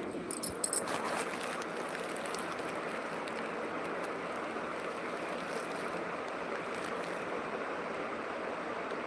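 Steady rushing noise of running water, with a few short clicks in the first second.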